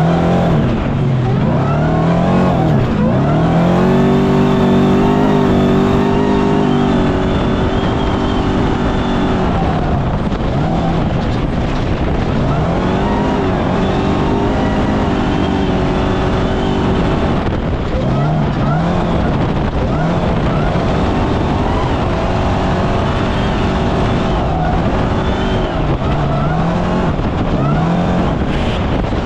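Off-road race vehicle's engine working hard, its pitch climbing and dropping repeatedly as it accelerates, holds and backs off, over constant wind and road noise.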